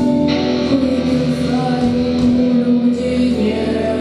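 Music: a song's accompaniment carrying long held notes between sung lines.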